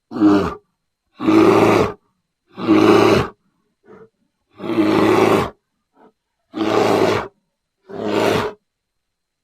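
Bear roars: six separate short roars, each under a second long, cut apart by brief silences.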